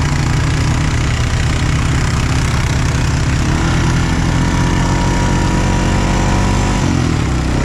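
ATV engine running while the machine is ridden. The engine note rises gradually for a few seconds, then drops about seven seconds in as the throttle comes off.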